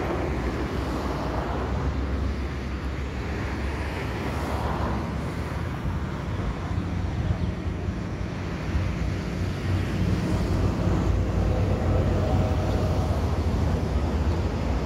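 Airbus A321 jet engines on final approach: a steady low rumble that grows louder from about two-thirds of the way through, mixed with wind buffeting the microphone.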